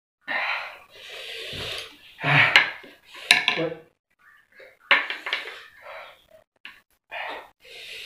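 Chopsticks clicking and scraping against a plate of instant noodles as they are picked up and eaten, in a string of short bursts with a few sharp clicks near the middle, and noisy breaths between them.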